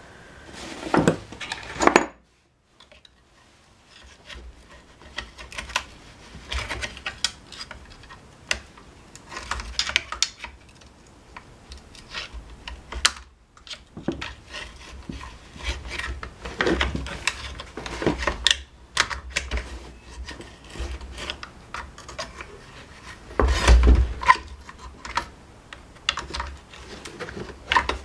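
Irregular clicks, taps and clatter of small metal and plastic parts and hand tools being handled while the engine covers of a Honda UMK-422 brush cutter are taken off, with a louder knock about 23 seconds in.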